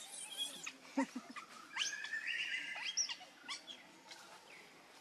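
High-pitched animal chirps and squeaks, with one longer wavering call about two seconds in and a couple of sharp clicks.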